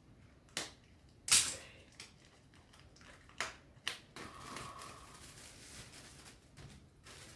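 A book parcel being opened by hand: several sharp clicks and crinkles of packaging, the loudest about a second in, then a few seconds of rustling.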